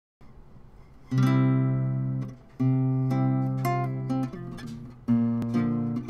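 A Kay-made mid-1960s Silvertone model 660 classical/folk guitar with a solid spruce top, tuned a whole step down to DGCFAD, being fingerpicked. Three ringing chords sound, about a second in, halfway through and near the end. Each fades out, with lighter single picked notes between them.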